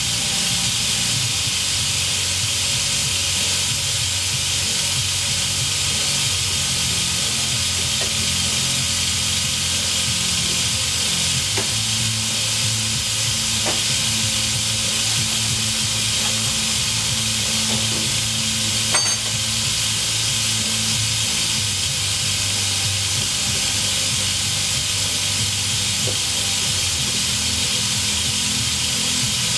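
Steady machinery noise: a continuous hiss with a low hum underneath that shifts in pitch a couple of times, and a single sharp click about two-thirds of the way through.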